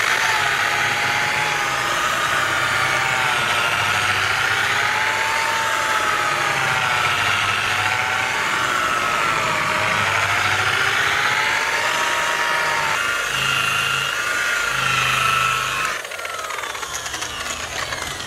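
Handheld electric rotary polisher with a foam pad running against a car's painted door panel, buffing light polishing compound into the paint; its motor whine wavers in pitch as the pad is pressed and moved. It is switched off about sixteen seconds in and winds down.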